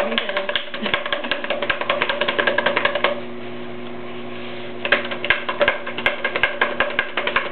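A small coil of soft clay being shaken up and down inside a cardboard paper towel tube, knocking rapidly against the tube as it is rolled thin into a pottery handle. The knocking stops for about a second and a half midway, then starts again.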